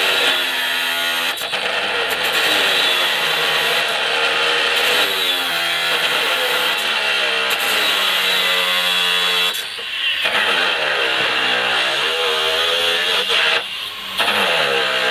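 Two Makita cordless angle grinders, one 5-inch 18 V and one 7-inch 36 V, cutting galvanised threaded rod at the same time. The motors' pitch sags as the discs bite into the steel and climbs again as they free-spin. The sound briefly dips about 10 s and 14 s in, between cuts.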